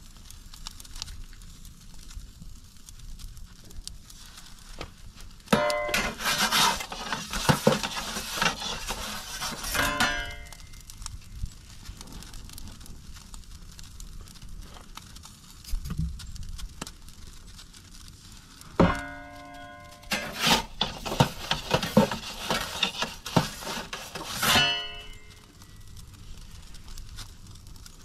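Pizza being turned in a charcoal/wood-fired pizza oven: a peel scraping and clattering on the baking stone and oven, in two bursts of about five seconds each with some ringing tones.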